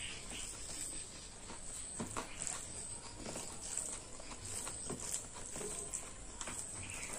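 Close-up eating sounds: a person chewing a meal of rice and curry, with irregular small wet clicks and smacks from the mouth and food.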